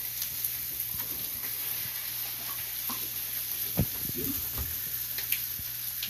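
Steady sizzling hiss of food frying on a griddle, with a few light knocks and clinks of a spoon against a glass bowl.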